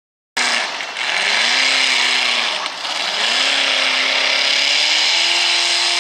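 Open-rail pulling tractor's engine revving hard, easing off briefly twice and then climbing and holding at high revs.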